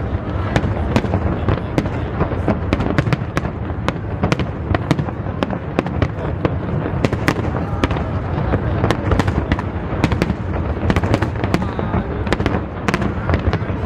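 Aerial fireworks display bursting in rapid succession: several sharp bangs a second over a continuous low rumble of shells going off.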